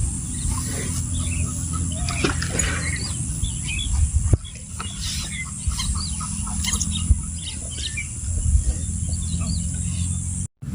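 Many birds chirping in short scattered calls over a steady low rumble. The sound breaks off abruptly near the end.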